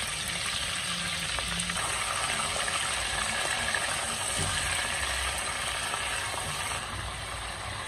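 Chopped onions and tomatoes sizzling in hot oil in a pot, stirred with a silicone spatula. The steady sizzle eases a little near the end.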